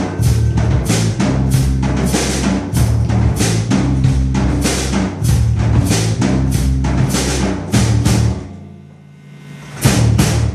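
Live blues-rock band playing the closing bars of a song: heavy drum and cymbal hits about twice a second over the bass. The sound dies away about eight seconds in, then one last loud hit ends the song.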